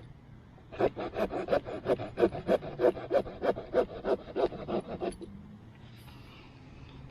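Victorinox Ranger Swiss Army knife's small saw blade cutting a wet stick in quick, rasping back-and-forth strokes, about five a second, stopping about five seconds in.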